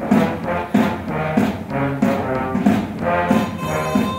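Brass swing band (trumpets, trombones, euphoniums, tubas and double bass) playing a swing number, with sustained brass chords over accented beats about every two-thirds of a second.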